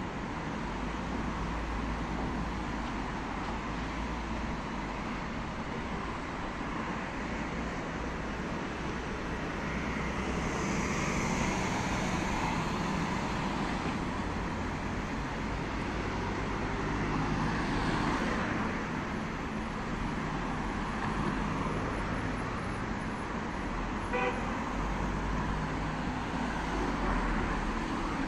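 Steady city road traffic: cars and vans passing, the noise swelling as each goes by, with one short horn toot about three quarters of the way through.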